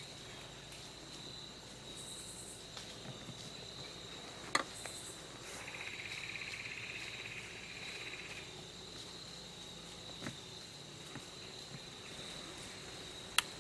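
Woodland ambience of insects: a steady thin high insect whine, with a louder pulsing insect trill about halfway through that lasts some three seconds. Two sharp clicks, one about four and a half seconds in and one near the end.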